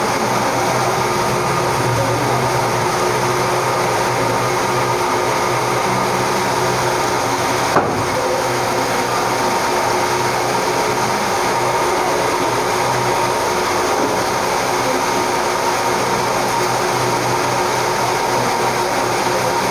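Steady hiss with a constant hum in a classroom, unchanging throughout, with one short click about eight seconds in.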